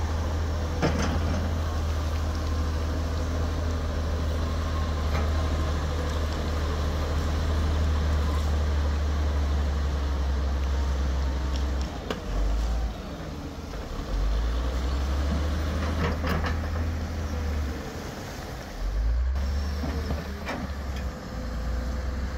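Diesel engines of heavy earthmoving machinery, an excavator and a bulldozer, running steadily with a deep hum that changes level a few times. A few sharp knocks stand out over the engine noise.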